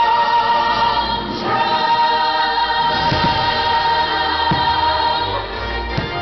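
A choir singing long held notes in a fireworks show's music. A few firework bangs cut through, the sharpest about six seconds in.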